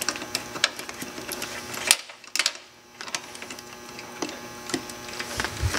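Socket ratchet clicking in uneven runs while backing out the bolts of an ATV's rear brake caliper, with sharp clinks of metal tools, the loudest about two seconds in.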